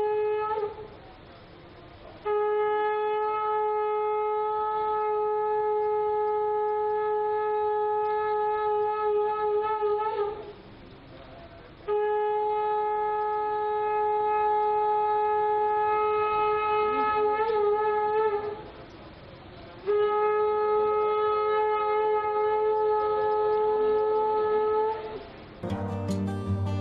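Ceremonial conch shell (shankh) blown in long blasts on one steady note, three full blasts of about seven to eight seconds each with short breaths between. The tail of an earlier blast is heard at the start. Near the end the conch gives way to music with plucked strings.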